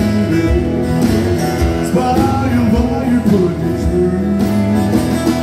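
Live acoustic country band playing an instrumental passage of a song: several strummed acoustic guitars, with a fiddle.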